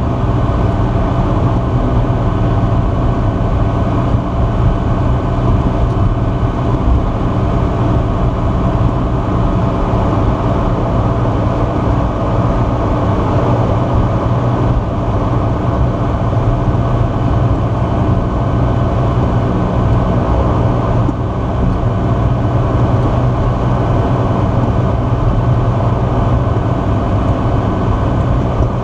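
Cirrus SR20's piston engine running steadily at low taxi power, propeller turning, heard from inside the cockpit as an even, unchanging drone.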